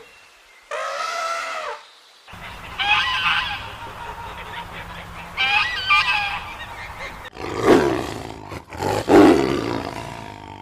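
A run of separate animal calls cut one after another: three short pitched calls, the second and third wavering, in the first six seconds, then two louder, deeper and rougher calls about three-quarters of the way through.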